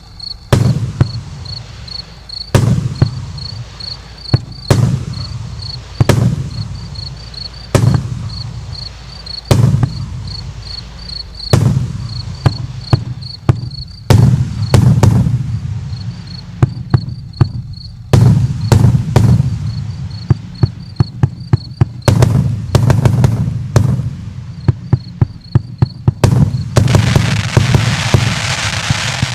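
84-shot fireworks cake firing: launch thumps and aerial bursts about every two seconds, then quickening into rapid volleys of bangs, with a dense crackling hiss near the end.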